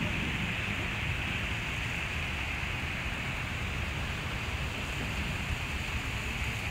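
Steady outdoor background noise of a city park: a low rumble with an even hiss over it and no distinct event.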